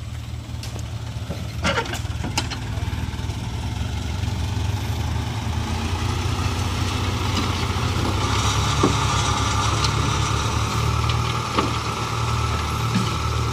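Small diesel dump truck's engine running steadily while its hydraulic hoist tips the loaded bed; the engine grows louder partway through and a steady whine joins about halfway as the bed lifts. A few short knocks of shovels in the soil.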